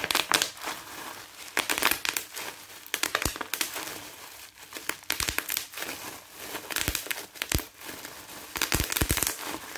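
Plastic bubble wrap crinkling as hands crumple and pull it apart, with many irregular sharp crackles.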